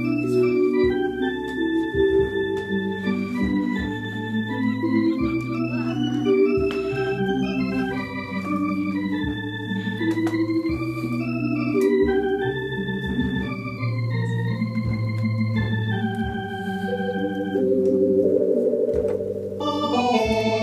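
A 1970s Hammond organ playing held chords over a steady bass line, with a melody moving above; the chords grow fuller and a little louder near the end.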